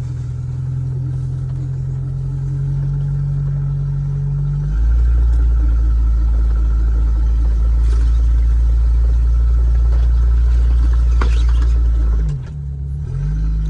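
Jeep engine running as it drives slowly over a rough farm trail. About four and a half seconds in the engine note drops lower and gets louder, and near the end it dips briefly and the pitch glides back up.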